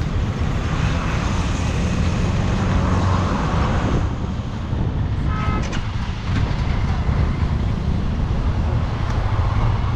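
Motorcycle on the road with heavy wind rumble on the microphone and engine and traffic noise, and a short vehicle horn toot about five seconds in.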